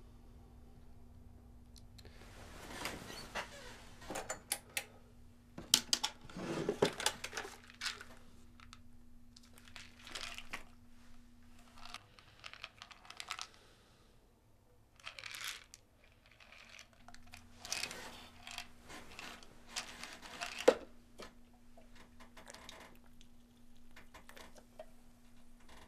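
A plastic pill bottle being handled and opened, with pills rattling and clicking, mixed with the rustle of bedsheets. The noises come in irregular bursts with sharp clicks, over a faint steady hum.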